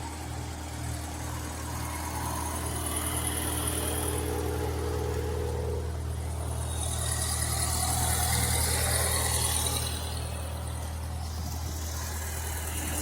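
Briggs & Stratton 5 horsepower single-cylinder engine running steadily at idle, swelling a little louder for a few seconds in the middle before settling back.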